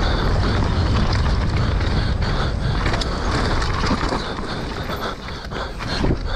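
Mountain bike descending a dirt trail at speed: wind rushing over the camera's microphone with a heavy low rumble, tyres on the dirt, and short knocks and rattles from the bike over bumps.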